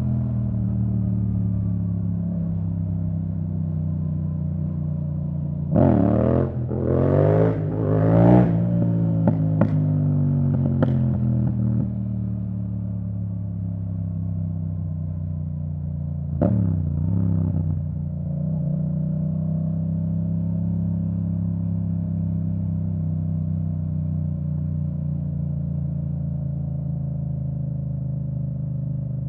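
2017 Yamaha MT-07's parallel-twin engine running through an Akrapovic titanium full exhaust with the dB killer out, held at a steady cruise. About six seconds in it revs up in three quick rising pulls, each cut off sharply by a quickshifted upshift, followed by a few sharp cracks, and near the middle there is one more short rise before it settles back to steady running.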